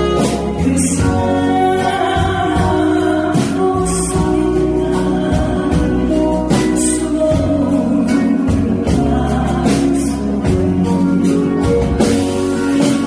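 A woman singing a Korean song over instrumental accompaniment with a steady beat.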